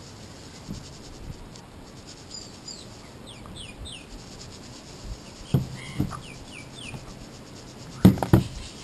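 Small birds chirping in two bouts of short downward-sliding notes. A metal kitchen strainer of damp paydirt being shaken over a plastic gold pan gives a few soft knocks in the middle and a louder cluster of knocks near the end.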